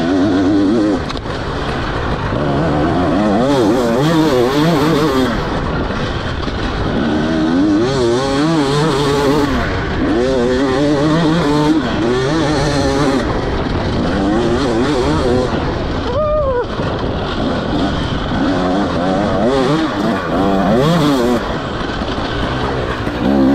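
2024 KTM 300 XC-W two-stroke single-cylinder dirt bike with an Akrapovic slip-on exhaust, ridden hard: the engine revs rise and fall every second or so as the throttle is worked on and off, with one sharp blip about two-thirds of the way through.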